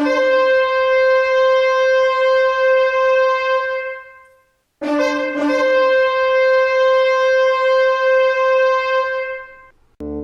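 A horn blown in two long blasts, each opening on a short low note that jumps up to a high held note of about four seconds, then fading out: the trumpet call of the rapture.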